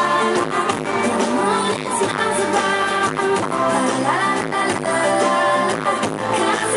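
Live pop song from a band on stage, with singing over a steady drum beat.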